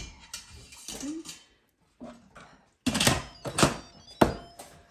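Instant Pot parts clunking as they are handled and set in place: a sharp knock at the start, then a quick cluster of hard knocks about three seconds in and another just after four seconds.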